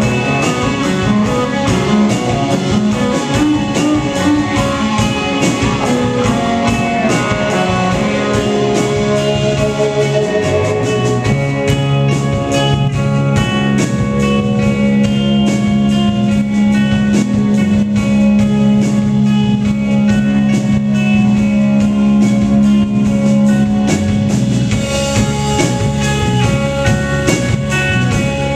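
A live band playing electric guitars over a drum kit with steady cymbal hits. A low note is held for much of the middle of the passage.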